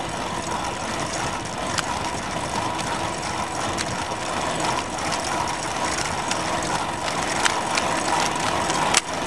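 Bicycle rolling along a road, heard from a camera taped to the bike: steady tyre and road noise with scattered clicks and rattles.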